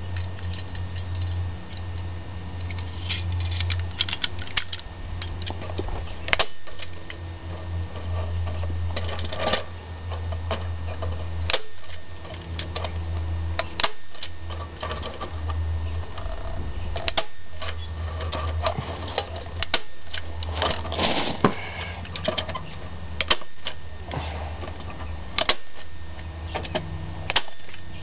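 Manual staple gun driving staples through wire mesh into a wooden frame: sharp snapping clicks at irregular intervals, with clattering as the gun and mesh are handled, over a steady low hum.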